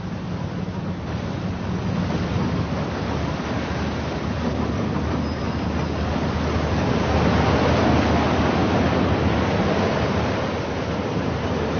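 Steady rush of sea water and wind aboard a ship under way, over a low steady hum from the ship's engines. The rush grows louder about seven seconds in and eases again near the end.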